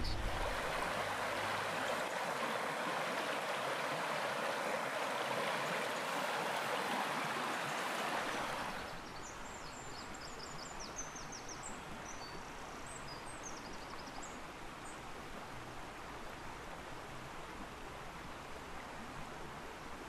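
Stream water flowing steadily, louder for the first nine seconds or so, then quieter after a sudden change. In the quieter part, birds chirp briefly high above the water.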